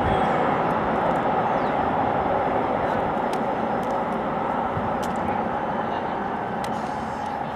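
Train hauled by LMS Black Five steam locomotives 44871 and 45407 moving away: a steady rumble that slowly fades, with a few sharp clicks.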